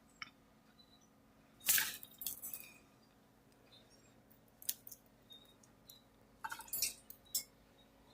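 Pet cockatiel making soft, scratchy chatter and clicks in short scattered bursts, the loudest about two seconds in and again near the end.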